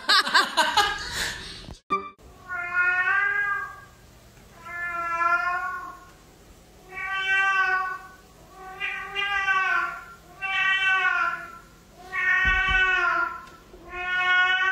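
A cat meowing loudly over and over: about seven long, drawn-out meows, each a second or more, coming roughly every two seconds. Before them, a short dense burst of noise cuts off abruptly about two seconds in.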